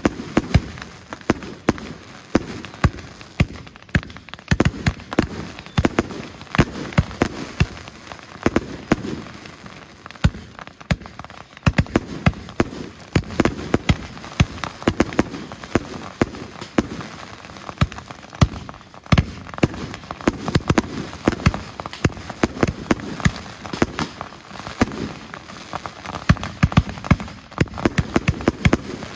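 66-shot consumer fireworks cake firing shot after shot: a rapid, unbroken series of launch thumps and sharp aerial bursts, several a second, often overlapping.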